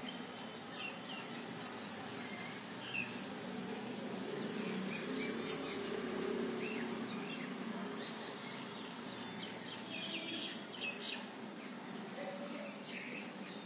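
Soft scratching of a yellow colouring stick stroked back and forth on paper, in uneven bursts that are busiest toward the end, with faint short high chirps now and then.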